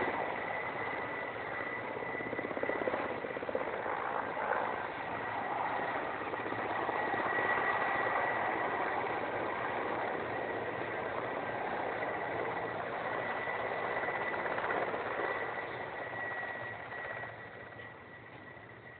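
Transport helicopter hovering and flying low close by: steady rotor and turbine noise with a thin high whine over it, which grows fainter in the last couple of seconds.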